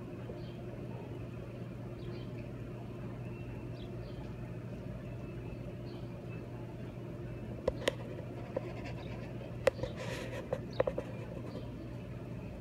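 Steady low hum of a large barn fan, with faint short bird chirps repeating about once a second. In the second half come a few sharp clicks and a brief rustle.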